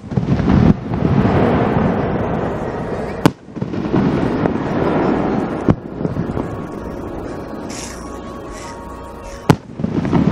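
Aerial firework shells bursting: three sharp booms a few seconds apart, each followed by a long rolling rumble.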